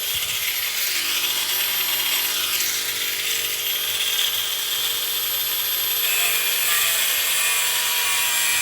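A power tool or small machine tool running steadily: a continuous hiss with a few steady whining tones, its character shifting slightly about six seconds in.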